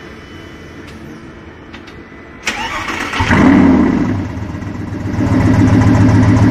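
Lamborghini Gallardo's 5.2-litre V10 is started after a short lull: about two and a half seconds in the starter cranks and the engine catches. It flares up in revs, dips, and settles into a steady idle.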